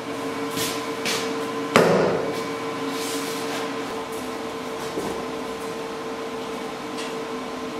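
A single sharp knock, like metal struck or set down, just under two seconds in, over a steady hum, with a few brief hissing swishes.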